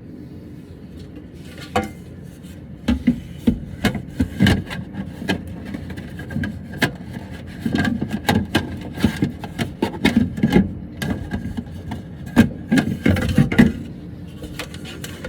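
Irregular knocks, clicks and rubbing scrapes of objects being handled and set down, busiest from about three seconds in, with the loudest knocks near the end.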